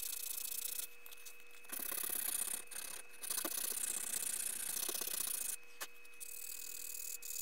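Hand sanding a basswood lure body with a sheet of sandpaper: a scratchy rubbing of paper on wood in about four stretches of strokes, with short pauses between them.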